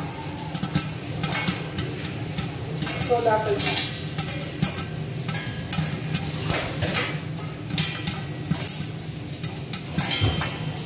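Corn kernels popping now and then inside a covered stainless steel pot, sharp scattered pops over a steady sizzling.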